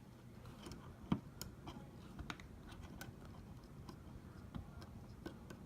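Faint, irregular small clicks and taps from handling the iPhone 6's parts while the screen's ribbon cables are lined up with their connectors.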